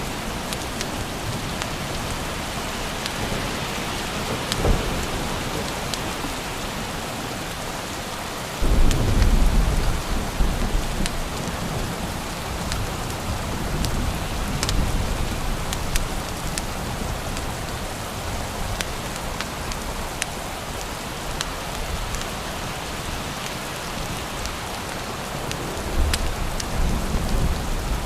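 Steady rain falling, with thunder: a low rumble breaks in suddenly about nine seconds in and rolls on for several seconds, and another rumble comes near the end.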